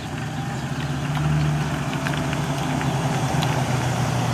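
Engine of a Chevrolet Silverado pickup idling close by, a steady low hum that grows slightly louder about a second in.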